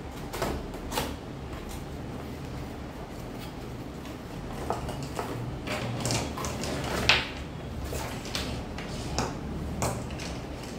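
Unboxing handling of a cardboard box and a battery charger with clamp leads: scattered rustles, scrapes and light knocks as the box is opened and the charger pulled out, the sharpest knock about seven seconds in.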